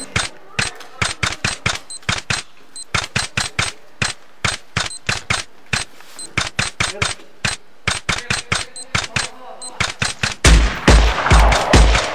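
Rapid gunfire: sharp shots several a second in uneven bursts. Near the end a louder layer with a heavy, regular low beat comes in.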